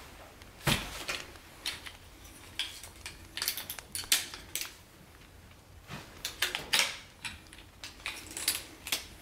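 Shock-corded aluminum poles and leg fittings of a Helinox Cot One frame clicking and clattering as they are handled, a string of irregular sharp clicks and light knocks. The loudest knock, with a dull thump under it, comes about a second in.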